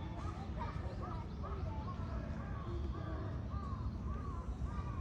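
Birds calling in a quick run of short, arching calls, about two a second and partly overlapping, over a steady low rumble.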